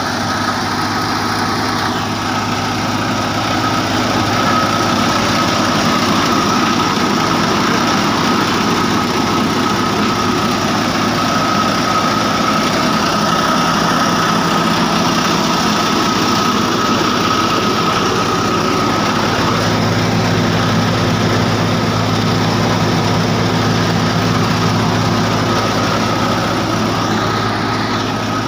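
Tractor-driven chickpea thresher running steadily under load: a continuous engine and threshing-drum drone with a steady high whine running through it, the low hum growing stronger about two-thirds of the way in.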